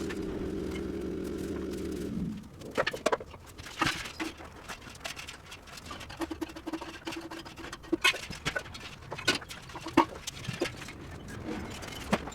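A steady machine hum that cuts off suddenly about two seconds in, followed by scattered light clicks and knocks.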